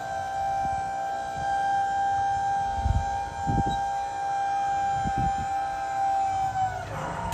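Electric hydraulic pump motor of a box truck's lift gate running with a steady high whine, then winding down and stopping near the end, with a few low thuds underneath.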